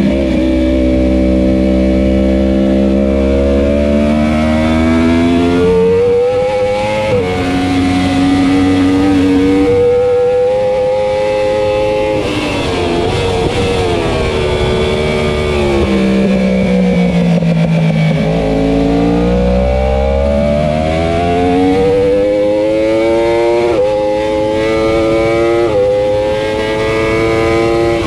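2015 Yamaha R1 race bike's inline-four engine at full throttle, pitch climbing with sudden drops at each quick upshift. It then winds down through downshifts under braking for a corner and climbs again through more upshifts near the end.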